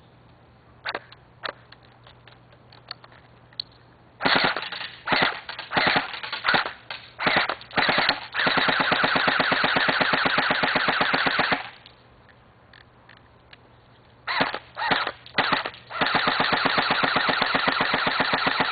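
S552 Commando airsoft electric gun (AEG) firing on full auto, a fast, even rattle from its gearbox. After two faint single clicks come several short bursts from about four seconds in, then a long burst of about three seconds. After a pause there are more short bursts and another long burst near the end.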